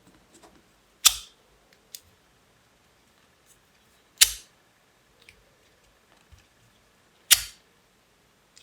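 A lighter clicked three times, about three seconds apart, each a sharp click with a short tail, lighting a flame to seal the cut ends of ribbon.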